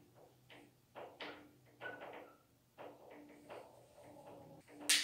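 Dry-erase marker writing on a whiteboard: a run of short scratchy strokes, some with a faint squeak, and a sharper tap of the marker on the board near the end.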